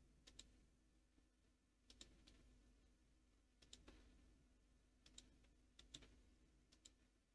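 Near silence with a few faint, short computer clicks, several coming in quick pairs, scattered through the stretch.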